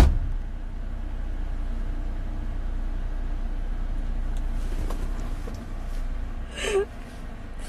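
Steady low rumble of a car heard from inside the cabin, after a sharp click at the very start. A short laugh comes near the end.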